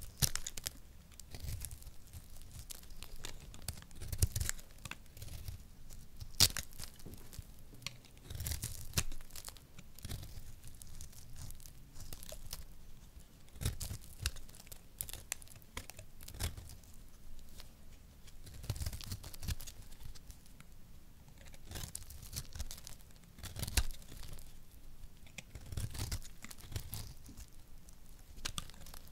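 A small blade cutting and shaving into a dry, crumbly bar of recycled soap: irregular crisp scraping and crackling strokes as flakes break away, with a few sharper snaps.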